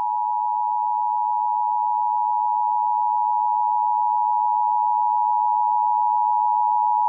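Emergency Alert System two-tone attention signal: two steady tones sounded together as one loud, unwavering alarm tone, the signal that announces an emergency warning (here a flash flood warning) is about to be read.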